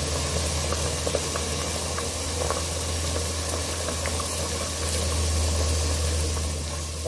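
Petai pods simmering in a pot of boiling water: steady bubbling with scattered small pops over a constant low hum.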